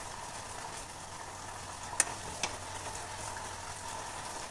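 Hot ghee sizzling as a steady hiss, with two sharp clicks of a spoon about two seconds in as khoya is spooned onto the ghewar.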